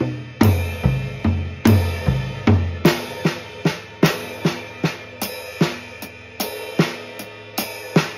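Acoustic drum kit played in a steady, even pattern of strokes on snare and toms with kick drum and cymbals, the Swiss Army triplet rudiment worked around the kit. Deep tom and kick booms sound through the first three seconds, after which the strokes are lighter and higher.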